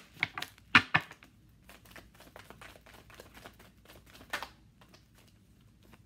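Tarot cards handled and shuffled by hand: scattered light clicks and snaps of the card stock, the sharpest about a second in and another a little after four seconds.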